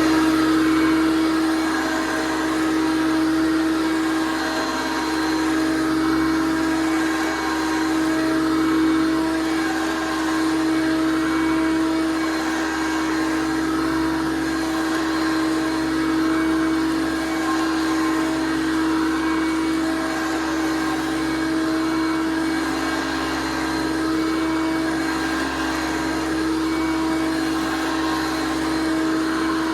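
1993 Hoover PowerMax U3721-910 upright vacuum cleaner running steadily, its motor giving a constant, even-pitched whine.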